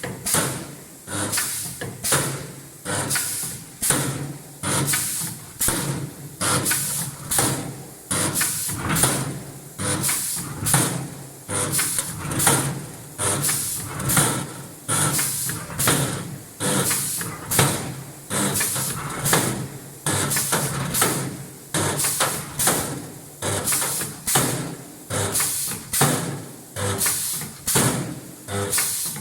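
CNC spot welding machine cycling automatically, making a rapid string of spot welds: a sharp pneumatic clunk with a hiss of air and a short low buzz roughly every 0.8 seconds, evenly paced throughout.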